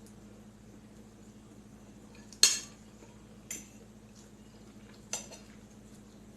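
An eating utensil clinking against the noodle bowl three times while eating, the first clink the loudest.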